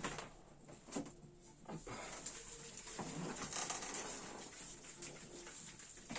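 Can of polyurethane expanding foam spraying: a hiss lasting a few seconds that starts about two seconds in, after a few short knocks and rustles of handling.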